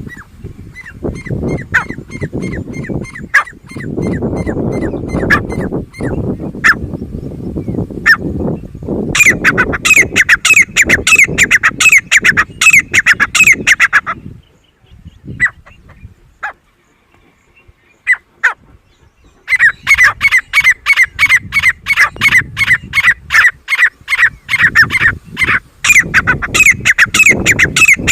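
Grey francolin calling: rapid runs of loud, sharp, evenly repeated notes. They break off for a few seconds about halfway, then start again. Under the fainter calling at the start is a low rumbling noise.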